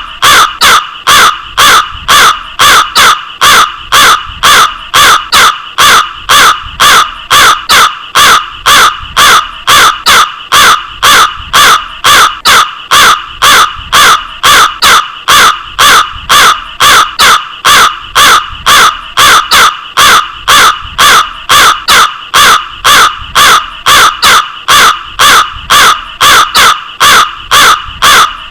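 Crow cawing over and over, loud, in a fast and very even rhythm of about two to three caws a second.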